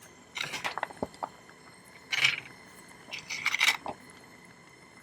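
Small metal tools and silver wire pieces clinking and scraping on a jeweller's bench, in three short rattling bursts, as parts are handled and repositioned.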